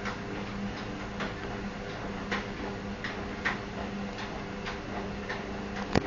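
Front-loading washing machine running, with a steady low motor hum and irregular sharp ticks about once a second.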